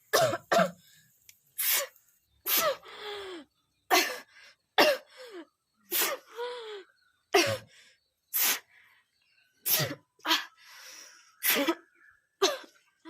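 A woman sneezing again and again in a fit she cannot stop, about one sharp sneeze a second, several trailing off in a falling voice. The sneezing is set off by the fumes of spicy cooking.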